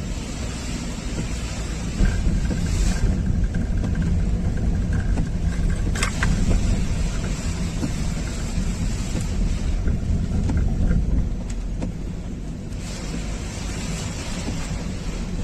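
Storm wind buffeting the microphone over a steady hiss of heavy rain and surf. A stronger gust rumbles in about two seconds in and eases off near the end, with a single sharp click about six seconds in.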